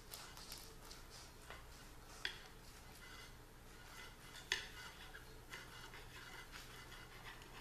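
Cutlery on a plate: soft scraping with two sharp clinks, about two seconds in and again about four and a half seconds in, as the sandwich is cut.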